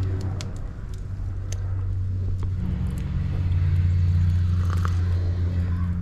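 Steady low engine hum that swells slightly about two and a half seconds in, with a few faint small clicks.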